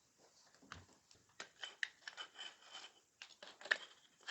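Faint metallic scrapes and light clicks as a rifle's upper receiver is slid back onto the lower receiver.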